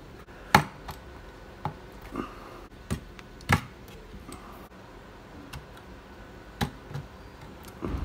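Plastic rocker switches being pressed and snapped into cut-out holes in a panel: scattered sharp clicks, the loudest about half a second in and again about three and a half seconds in.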